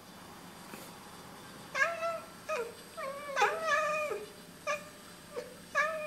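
Oriental Siamese cat chattering at birds: a run of seven or eight short, clipped, chirping calls starting about two seconds in, one of them drawn out a little longer near the middle.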